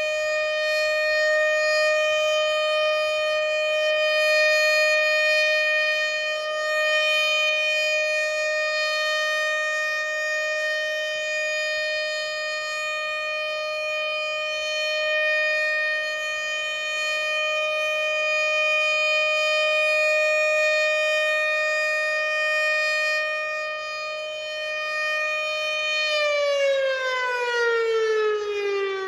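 Federal Signal Thunderbolt 1000 outdoor warning siren sounding a steady single tone during a test, its loudness swelling and fading as the rotating head sweeps around. About three seconds before the end the pitch begins to fall steadily as the siren winds down.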